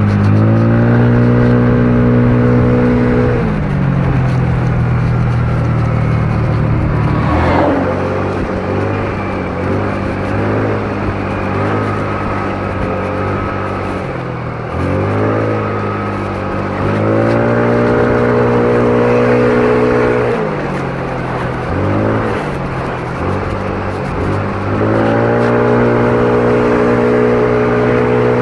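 Motor scooter engine under way, its note rising as the throttle opens and dropping as it eases off, several times over. There is a short sharp sound about seven seconds in.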